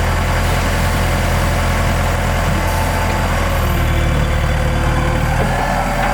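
Large excavator's diesel engine running steadily with a deep hum; the engine note shifts slightly about halfway through and a thin whine comes in near the end.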